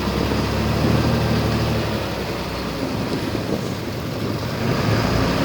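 Diesel engine of heavy earthmoving equipment running steadily with a low rumble, easing off a little midway and building again near the end.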